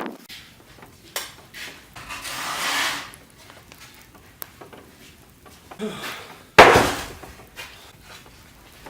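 Wooden pallet boards being handled: a knock, a scraping drag, then a few more knocks and one loud sharp wooden bang about two-thirds of the way through.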